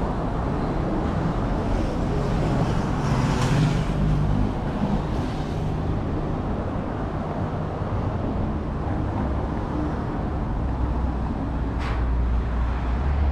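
City street traffic: vehicle engines running and passing with a steady low rumble, a brief hiss a few seconds in and a single sharp click near the end.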